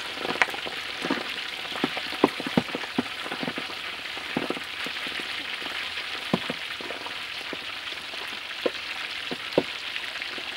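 Pork belly chunks deep-frying in a wok of hot oil: a steady sizzle with frequent sharp pops and crackles.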